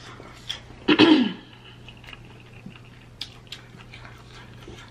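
A woman's short voiced outburst about a second in, falling in pitch, followed by faint clicks and small mouth noises as she eats; a low steady hum runs underneath.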